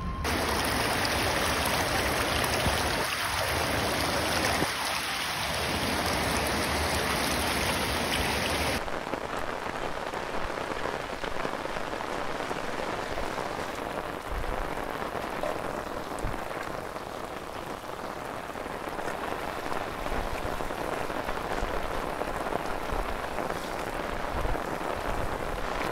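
Heavy rain pouring steadily onto flooded ground, a dense even hiss. It changes abruptly about a third of the way through to a slightly quieter stretch of the same downpour.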